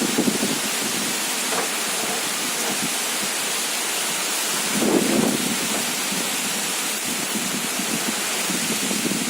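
Storm rain pouring down with gusting wind, a steady even hiss. It swells briefly about five seconds in.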